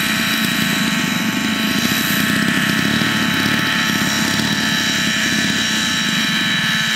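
Radio-controlled model helicopter hovering low with its engine and rotors running at a steady high-pitched whine, over the rough running of model aircraft engines.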